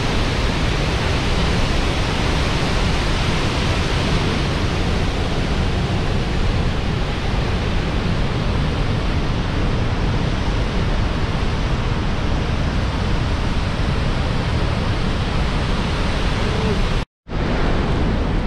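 The steady roar of Niagara Falls: a loud, even rush of falling water. It drops out for an instant near the end, then carries on.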